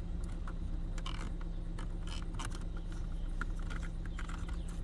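Ford Escape 1.6L EcoBoost four-cylinder engine idling steadily while its cooling system is being bled of air, with scattered light clicks and rattles of handling over it.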